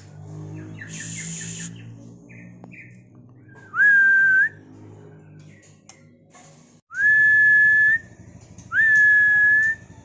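White-rumped shama whistling three long, clear, level notes, each opening with a short upward slide, starting about four seconds in. A brief rustle comes about a second in.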